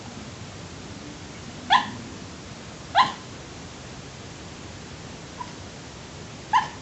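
Boxer dog yipping in its sleep while dreaming: three short yips that rise in pitch, and a fainter one just before the last, over a steady hiss.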